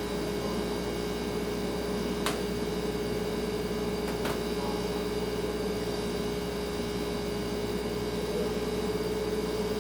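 Kitchen refrigerator running with a steady hum: one held tone over a soft even hiss. Two faint clicks, about two seconds apart, come a couple of seconds in.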